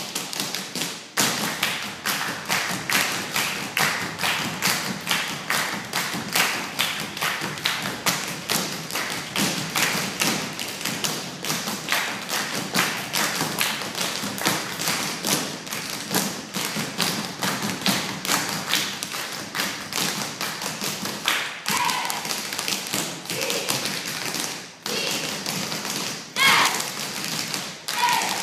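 Several tap dancers' shoes striking the stage floor in a rapid, continuous stream of taps, without accompanying music.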